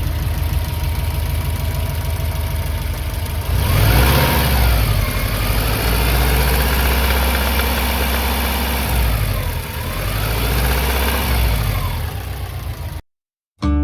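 Subaru EJ20 flat-four boxer engine with unequal-length headers idling, then running louder and higher from about 3.5 s in with the revs dipping and rising twice, before cutting off suddenly near the end. Its abnormal pattering knock is what the owner puts down to piston slap or a spun con-rod bearing, a fault that calls for an overhaul.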